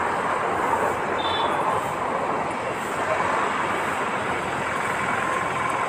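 Steady rushing noise with no clear rhythm or pitch, and a brief faint high chirp about a second in.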